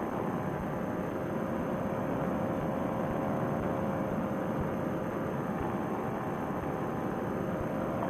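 Paramotor trike's engine and propeller running steadily in flight, an even-pitched hum under rushing air noise.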